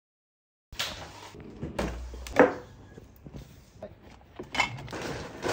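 Shopping bags and a large flat cardboard panel being loaded into a car boot. Rustling and scraping start just under a second in, with a few sharp knocks and thumps, the loudest about two and a half seconds in.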